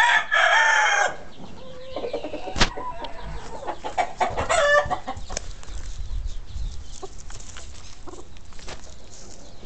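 Chickens: a rooster's long crow ends about a second in, followed by scattered clucks and short calls from the flock.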